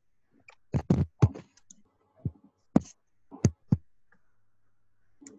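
Sharp taps and clicks picked up on a video-call microphone, about seven of them at irregular spacing over roughly three seconds.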